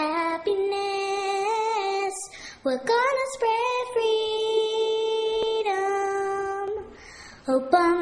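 A group of children singing a song in unison, holding long steady notes with short breaks between phrases.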